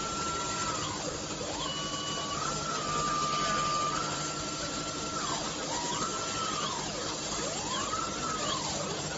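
A 1500 W IPG fiber laser cutting machine cutting 8 mm carbon steel: a steady hiss with a low hum under it. Over these runs a high whine from the machine's motion drives. It holds level, then several times sweeps down and back up in arcs as the cutting head slows and speeds up around the curved contours.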